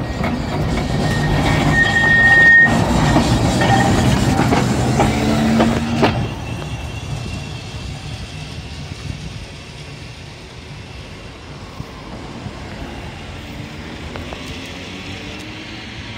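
Electric tram running past on the tramway rails, with a brief high squeal about two seconds in. The sound drops sharply about six seconds in and fades as the tram moves away.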